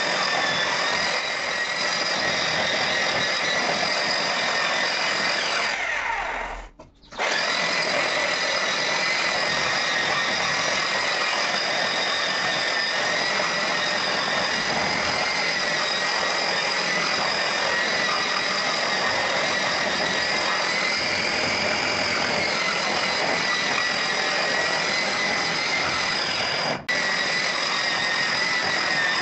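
Handheld electric rotary tool with a round pad, run over a wet cement layer to smooth it, giving a steady motor whine. The sound fades almost away about six seconds in and cuts back in abruptly, with one brief dropout near the end.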